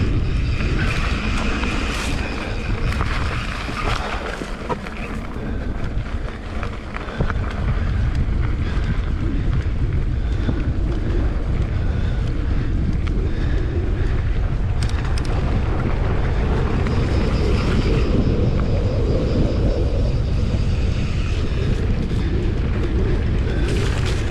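Vehicle engine running while under way, with heavy wind buffeting on the microphone; the level eases a little for a few seconds about four seconds in.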